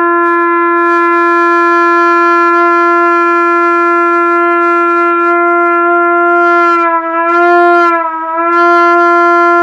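Trumpet sustaining a single long tone as a long-tone exercise, held steady and full. About seven seconds in, the pitch is bent a little up and down and then settles back on the note, showing how far the tuning can be moved with the lips.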